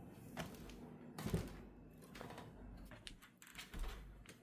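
Soft footsteps on a wooden floor: a few scattered light taps and knocks over quiet room tone.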